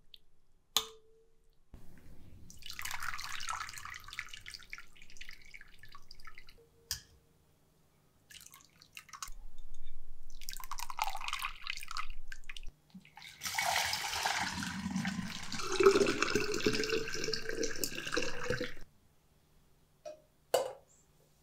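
Water running and splashing in three bursts of a few seconds each, the last the longest and loudest, with a few sharp clicks before and after.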